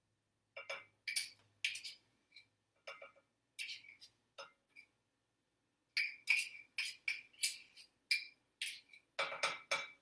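Butter knife scraping and clinking against a measuring cup in quick short strokes, working sticky honey out of the cup. The strokes come in two runs, with a pause about halfway.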